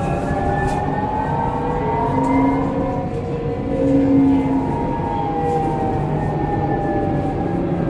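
Alstom Citadis 302 tram running along its track, heard from the cab: steady rolling noise with the whine of its electric traction drive, several tones gliding slowly up and then back down. Two brief louder low tones sound near the middle.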